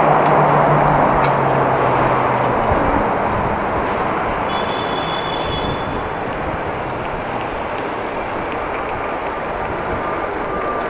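Steady rush of wind and road traffic heard while riding a bicycle in town. A low steady hum stops about two and a half seconds in.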